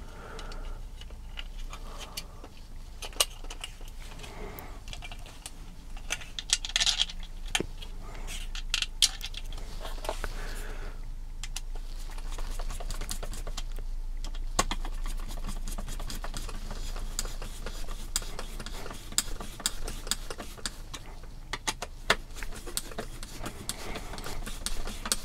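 Hand screwdriver turning screws into the hard plastic chassis and servo mount of a Tamiya MF-01X RC car kit, with the plastic parts handled and knocked together: many small irregular clicks and ticks.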